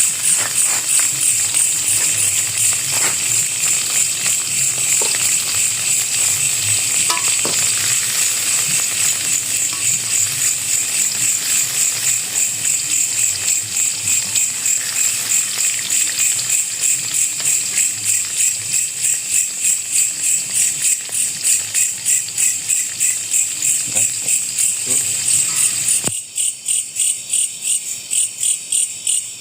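Loud, high-pitched chirring of night insects such as crickets, pulsing a few times a second, with a few faint clicks.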